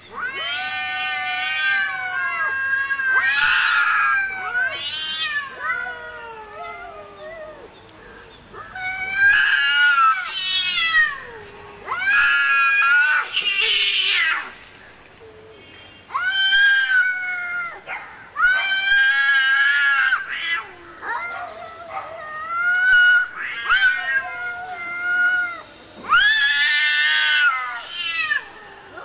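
Angry domestic cats yowling and caterwauling: a run of about ten long, wavering calls, each a second or more, with short pauses between them.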